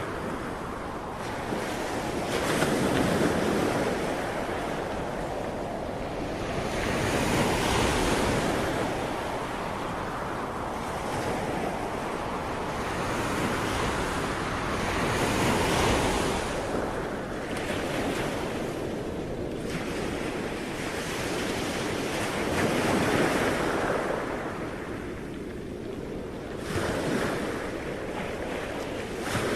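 Ocean waves breaking and washing up on a shore, the surf swelling and ebbing every few seconds, with some wind noise on the microphone.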